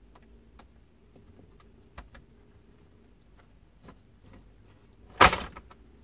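Small scattered clicks and taps as a laptop's LCD panel and its thin metal side bracket are handled during removal, then one louder, brief clatter about five seconds in.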